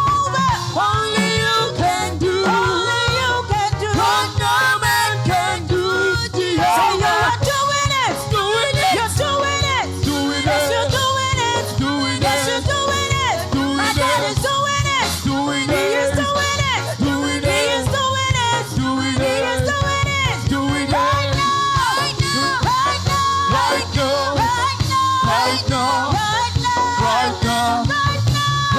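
Live gospel praise music: a church band playing a steady beat under singing.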